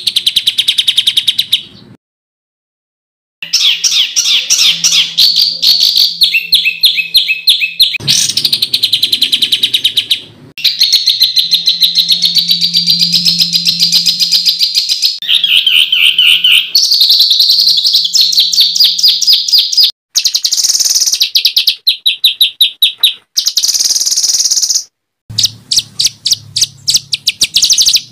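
Small songbirds calling in rough, rapid chattering and trilling phrases ('tembakan kasar'), cut together in abrupt segments with a brief silent gap about two seconds in and short breaks later.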